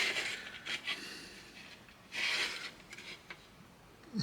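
Plastic model-kit parts being handled and pressed together, with soft rubbing and a few small clicks. There is a short hiss about two seconds in.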